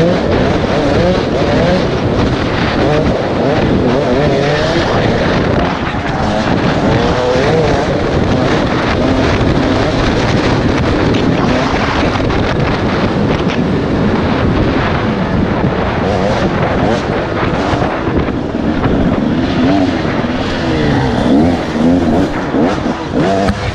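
Two-stroke enduro motorcycle engine running hard off-road, its pitch rising and falling over and over as the throttle is worked.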